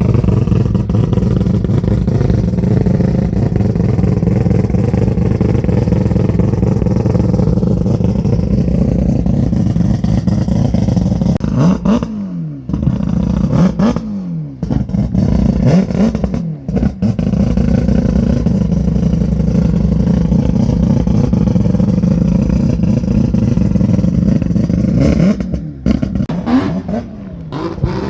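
Drift car engine held at high revs, with several sharp lift-offs and re-revs: the pitch drops and climbs again about three times a little under halfway through, and again near the end.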